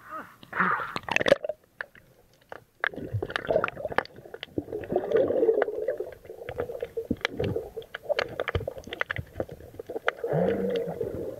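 Seawater gurgling and sloshing, muffled, with many small clicks and knocks scattered through it.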